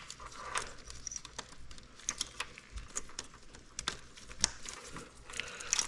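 Irregular light clicks and rustling of a motorcycle wiring harness being handled, its wires and plastic connectors moved into place by hand, with a somewhat sharper click near the end.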